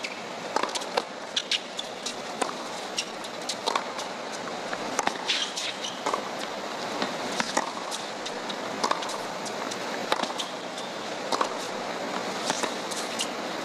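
Tennis rally on a hard court: sharp, irregular knocks of the ball off the rackets and off the court, over a steady murmur from the stadium crowd.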